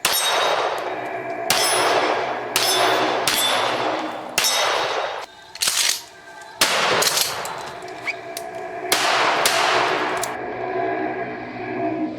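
Remington 870 12-gauge pump shotgun fired in rapid succession, about eight shots in ten seconds, each followed by a long echo.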